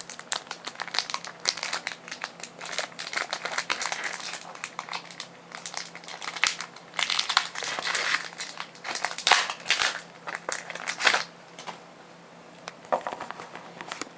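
Foil booster-pack wrapper of Pokémon trading cards crinkling and crackling in rapid irregular bursts as a pack is handled and opened, dying down about three seconds before the end.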